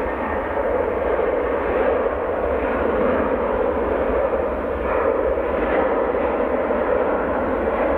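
Engines of an Airbus A330-303, General Electric CF6-80E1 turbofans, running at high thrust as the airliner accelerates down the runway on its takeoff roll: a steady jet noise.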